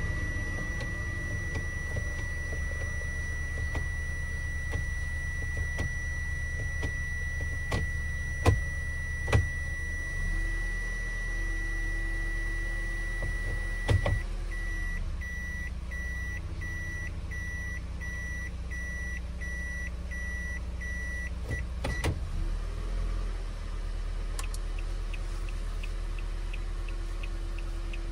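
Toyota Esquire cabin warning buzzer holding a steady high beep, then, with the shifter in reverse, beeping about one and a half times a second as the reverse warning. It stops with a click as the shifter goes back to park. After that the flasher relay ticks regularly with the turn signals on, over the low hum of the idling engine.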